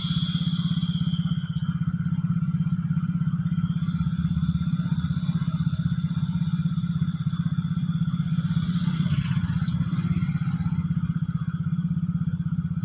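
Truck engine running steadily, with a fast, even pulse.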